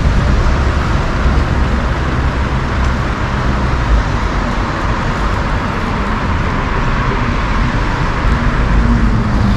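City street traffic: cars driving on wet asphalt, a steady hiss of tyres with engine rumble underneath.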